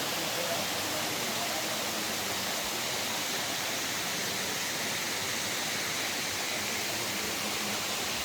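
Waterfall: the steady rushing of falling water, unbroken and even.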